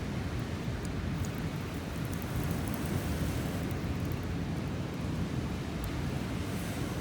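Steady low rumbling noise of wind and sea surf, with a few faint sharp ticks.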